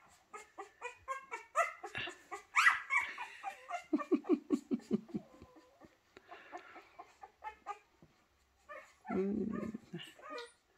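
Five-day-old Rhodesian Ridgeback puppy squeaking and whimpering, many short high calls in quick succession, while it works its way toward a teat. About four seconds in comes a quick run of low grunts, and about nine seconds in a louder, lower sound.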